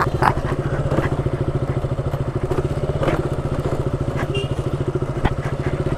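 KTM Duke 200's single-cylinder engine running at low, steady revs with an even low pulse as the bike rolls down a rough dirt track. There is a sharp knock a little after five seconds in.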